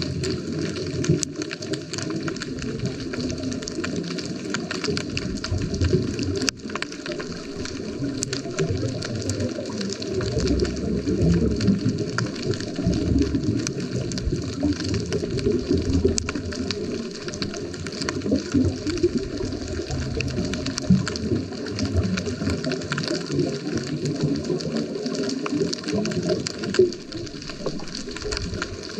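Underwater sound through a GoPro housing on a scuba dive: a steady, low churning rumble of water and bubbles, with scattered faint clicks and crackles and one sharper click about six seconds in.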